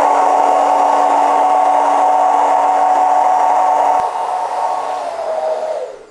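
Hand-held hair dryer with a diffuser attachment running steadily, a whine over a rush of air. A click about four seconds in, after which it runs quieter. Near the end it is switched off and winds down with falling pitch.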